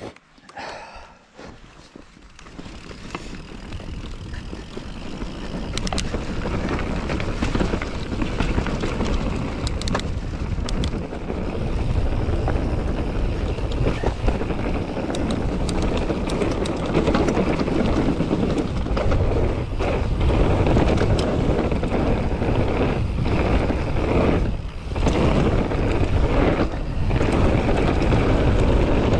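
Wind buffeting the ride-along camera's microphone and the tyres of a YT Capra mountain bike rumbling over the trail. The noise builds over the first few seconds as the bike gathers speed, then stays loud and steady, broken by scattered sharp clicks and knocks from the bike over rough ground.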